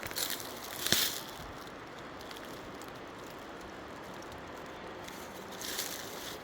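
Footsteps crunching on rough, dry ground: one sharp step about a second in, a pause, then a softer step near the end, over a faint steady outdoor hiss.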